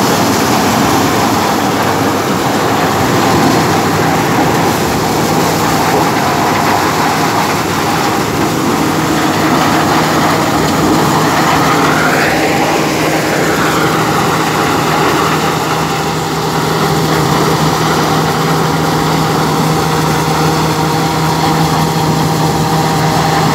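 CLAAS Crop Tiger 40 combine harvester running in standing maize: the diesel engine and the threshing machinery make a loud, steady mechanical din. About halfway through there is a brief rise and fall in pitch.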